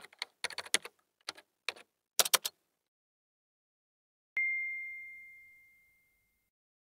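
Typewriter key-click sound effect: a quick, irregular run of sharp clicks lasting about two and a half seconds. After a short silence, a single bell ding sounds about four and a half seconds in, one clear tone that rings out and fades over a second and a half.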